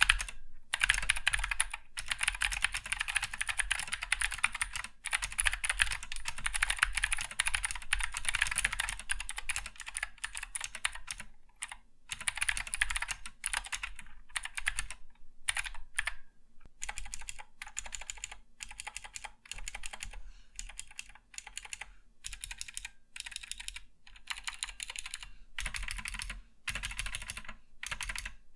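Typing on an Akko 3068 65% mechanical keyboard with clicky Gateron Green switches. Fast, continuous keystrokes for about the first eleven seconds, then shorter runs of typing with brief pauses between them.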